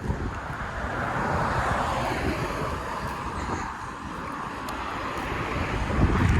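A passing motor vehicle, its rushing engine and road noise swelling about a second in and easing off after about three seconds. Wind buffets the microphone throughout.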